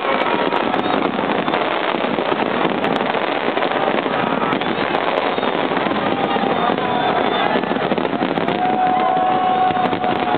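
Large fireworks display going off without a break, a dense, steady crackle of bursting shells.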